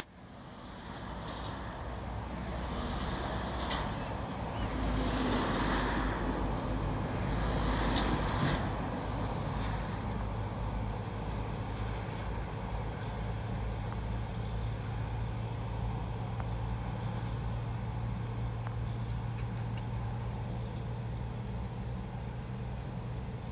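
Road vehicle noise. A vehicle sound swells up and dies away between about four and nine seconds in, and after that a steady low engine hum carries on.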